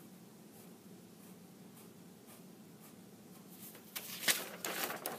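Pen drawing short lines on paper: faint, spaced scratches at first, then a louder flurry of quick strokes about four seconds in.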